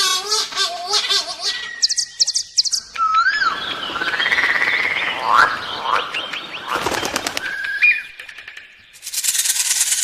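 Birds calling: a changing series of chirps, rapid trills and rising and falling whistles, switching abruptly every few seconds, with a stretch of rushing noise in the middle.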